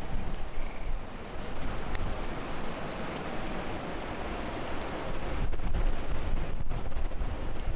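Rushing noise of wind on the microphone, heaviest in the low end and rising and falling in strength, with a few faint clicks.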